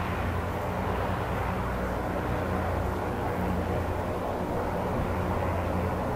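Zeppelin NT airship's propeller engines droning steadily at low altitude, an even low hum with no change in pitch or level.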